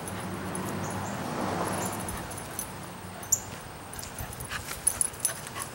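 A small dog moving about close by, with a few light clicks and clinks in the second half.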